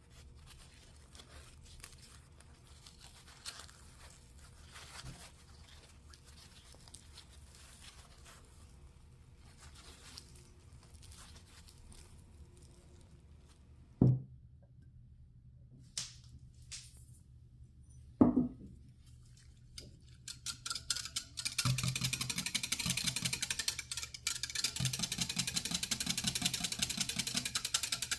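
Kitchen prep sounds: faint handling, two sharp knocks about halfway through, then a fast, even, scratchy rhythm of ingredients being mixed in a bowl for the last few seconds.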